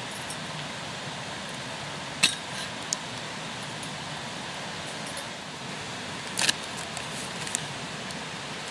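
A few short, sharp clinks over a steady hiss like light rain. The two loudest come about two seconds in and about six and a half seconds in, with fainter ones just after each.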